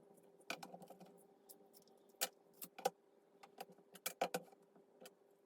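Irregular sharp clicks and taps of a knife blade against the glass back panel of a Samsung S8 as the back is pried off, about eight of them and loudest in the middle.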